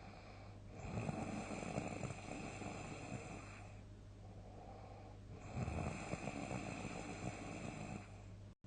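A person snoring loudly in deep sleep: two long, rough snores a few seconds apart, with quieter breathing between them.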